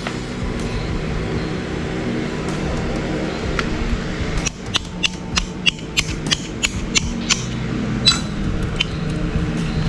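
Sharp metallic clicks and taps from hand tools and metal parts being handled during motorcycle disassembly, coming irregularly two or three a second from about halfway in, over steady background music.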